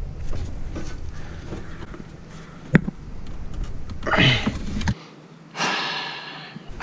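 Sheet-metal intake airbox being handled and worked into place: a sharp metallic click nearly three seconds in, then a short strained grunt and a long breathy exhale near the end.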